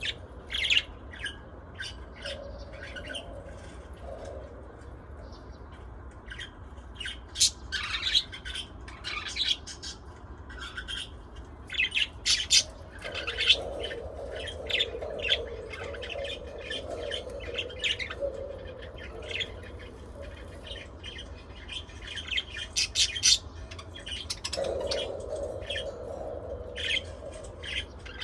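Pet budgerigars and lovebirds chirping and squawking: many short, sharp calls coming thick and irregular.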